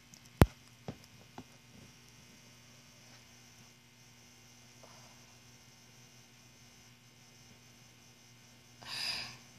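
A sharp click, then two fainter ones within the first second and a half, as a small plastic Littlest Pet Shop figure is handled. After that only a faint steady electrical hum, with a short rush of noise near the end.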